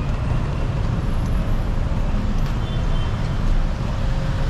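Steady rumble of city street traffic: the engines and tyres of passing vehicles.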